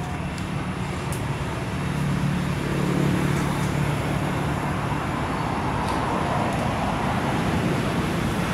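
Steady low rumble of motor traffic, swelling slightly about two seconds in.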